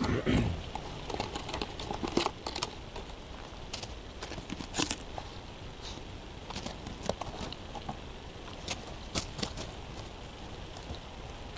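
Irregular crunching and crackling from a Lagotto Romagnolo puppy stepping and nosing about in crusty snow and dry forest litter close to the microphone, with a dull bump at the very start.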